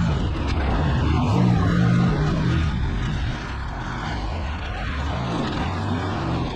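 Truck engine running steadily while driving, a low drone under a constant wash of noise.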